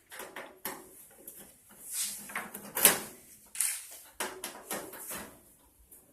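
Clicks, scrapes and knocks of the back cover of an LED ticker display sign being worked loose and opened by hand, with one sharp knock about halfway through.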